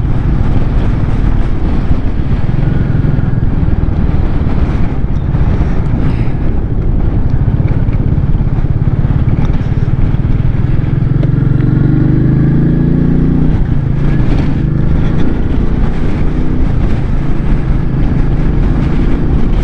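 Royal Enfield Meteor 350's single-cylinder engine running steadily while the motorcycle is ridden. About eleven seconds in, its pitch rises for a couple of seconds as it revs up, then drops back.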